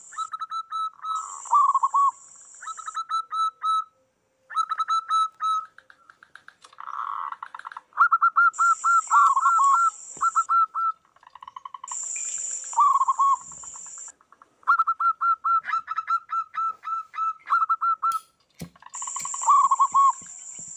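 Several zebra doves (perkutut) calling back and forth, each song a rapid series of short staccato coos, two birds at slightly different pitches often overlapping. A high-pitched hiss comes and goes in stretches of a second or two.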